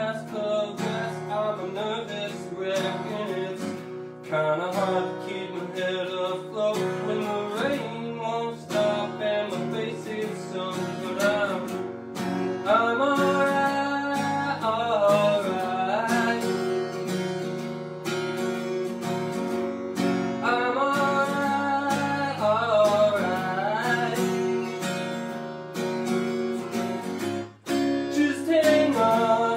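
Acoustic guitar strummed, with a voice singing a melody over it.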